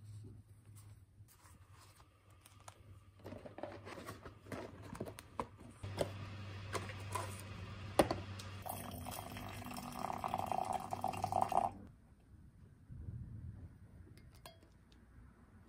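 Light rustling and clicks of a cardboard tea box being handled, then water poured into a glass measuring jug for about three seconds, stopping abruptly a little past halfway.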